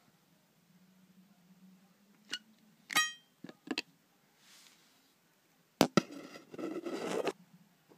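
Knocks and taps of the camera against a clear enclosure: a few sharp taps, one about three seconds in with a short glassy ring, then two loud knocks near six seconds and about a second of rubbing and scraping.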